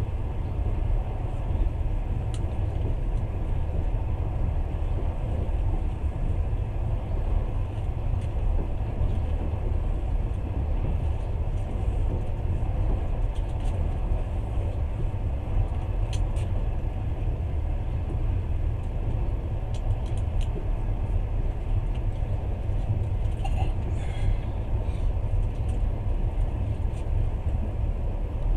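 Steady low rumble of a passenger train running at speed, heard from inside the carriage, with a few faint ticks and a brief higher squeak near the end.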